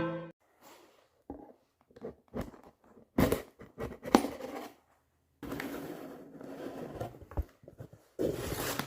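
A cardboard snack box and its packaging being handled and opened: scattered scrapes, clicks and tearing, then longer stretches of rustling from about halfway in.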